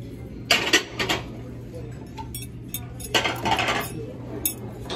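Dishes and cutlery clattering in a few short bursts, with a sharp clink near the end, over a steady low hum.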